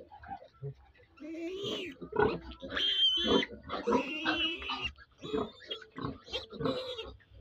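Piglet squealing in a series of short cries while held and dosed with medicine from a syringe pushed into its mouth.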